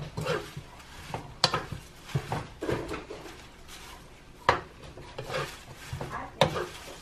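Metal spatula stirring taro leaves in coconut milk in a stainless steel pan: soft, irregular scraping and knocking against the pan, with a few sharper metallic clinks.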